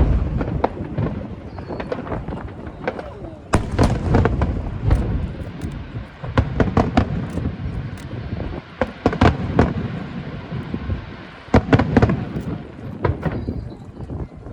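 Fireworks display: a rapid series of aerial shells bursting with deep booms and sharp pops, heaviest in clusters every few seconds.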